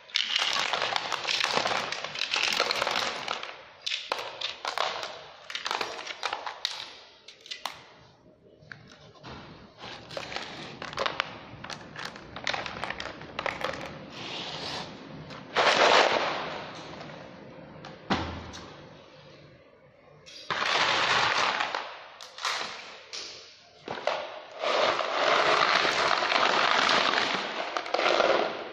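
Loose pebble-sized stones clattering and rattling in several long bursts, as handfuls are scooped and poured through a bait-boat hopper and tumble into a plastic crate, with quieter pauses between.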